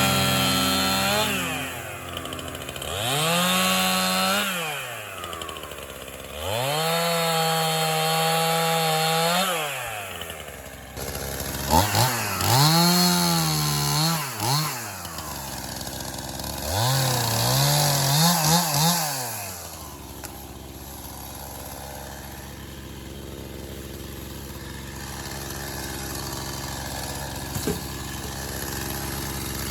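Stihl Farm Boss MS 271 two-stroke chainsaw run up to full throttle four times, each run lasting a few seconds with the engine dropping back in between, then idling steadily for the last ten seconds or so.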